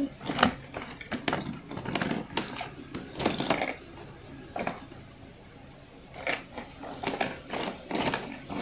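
Small plastic toys and their packaging being rummaged through by hand: irregular clicks, clacks and crinkling rustles, with a quieter spell about midway.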